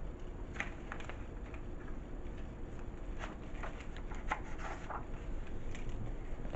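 Paper pages of a picture book being handled and turned: short soft rustles and light taps about half a second in, then a denser run of rustling between about three and five seconds in, over a steady low room hum.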